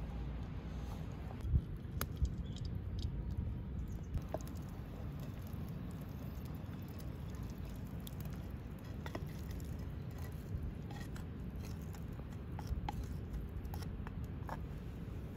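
Wooden spatula stirring raw boneless chicken pieces in a clay handi pot: soft wet squelching with scattered light clicks, over a steady low rumble.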